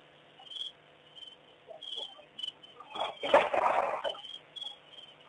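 Insects chirping in short, high, repeated calls. About three seconds in, a loud, rough, noisy sound lasts about a second; it comes while two elephants spar head to head at the waterhole.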